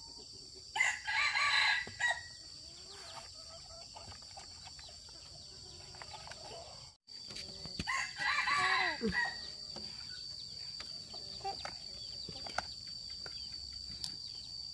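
Rooster crowing twice, one long crow about a second in and another about eight seconds in, the second trailing off with a falling pitch.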